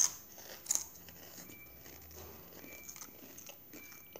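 Doritos tortilla chips being bitten and chewed: two sharp crunches in the first second, then quieter chewing.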